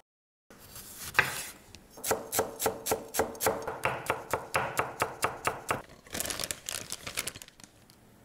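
Chef's knife chopping garlic on a wooden cutting board: a single sharper knock about a second in, then even chops about four a second, then a quicker run of chops near the end.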